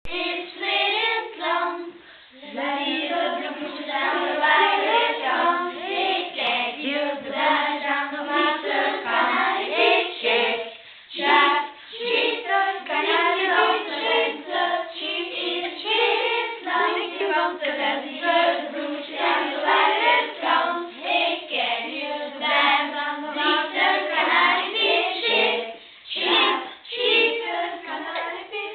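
A class of children singing a spring canon, a round sung by several voices together.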